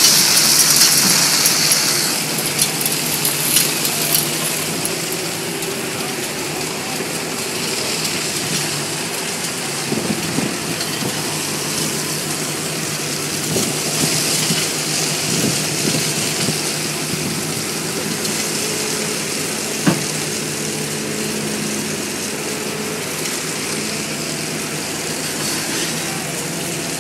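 Bobcat 335 compact excavator's diesel engine running steadily while it digs, with its hydraulics working the arm and bucket. A sharp knock comes about twenty seconds in.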